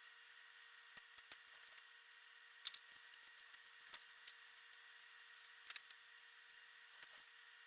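Near silence: faint steady hiss with a few scattered faint clicks and taps.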